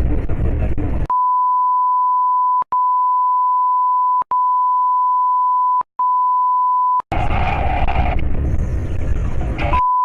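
A steady 1 kHz censor bleep tone laid over the audio, running for about six seconds with three very brief breaks, then returning near the end. Loud noisy stretches sit at the start and between about seven and ten seconds.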